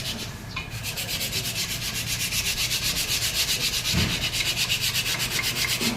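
Rapid, even rasping strokes, about eight a second, from a hand tool working a bolt or bushing on the car's front suspension, with a dull knock about two thirds of the way through.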